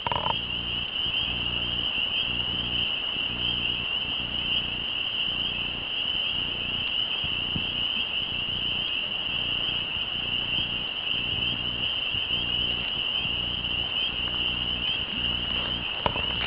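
Crickets trilling in one steady, unbroken high-pitched chorus, with a low pulsing drone underneath.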